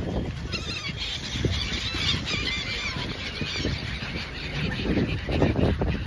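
A flock of gulls calling, many overlapping squawks crowding together in the first half, over a continuous low rumble.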